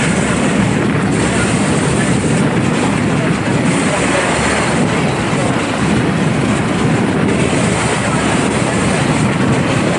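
Motorboat under way: the engine running steadily, mixed with the rush of water and air past the boat.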